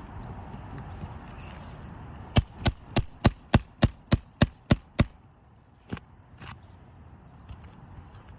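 Roofing hammer striking a roof snake nail-removal bar worked under a shingle to pull a roofing nail: about ten quick sharp blows, roughly four a second, then two more single blows a second later.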